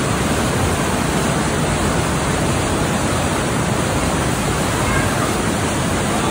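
Loud, steady rushing of high floodwater churning through a narrow cave passage, an even unbroken noise.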